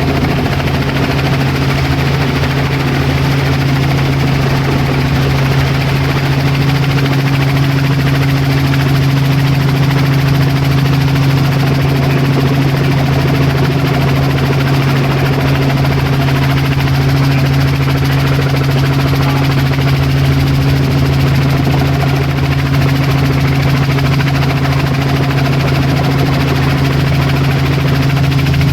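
Helicopter flying, a steady unchanging drone with a strong constant low hum and a fainter tone above it over a wide rushing noise.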